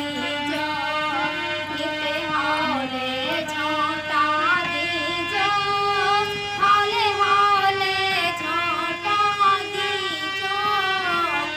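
A woman singing a Hindu devotional bhajan, accompanying herself on a hand-pumped harmonium. The harmonium's reeds hold steady chords under her wavering, ornamented voice.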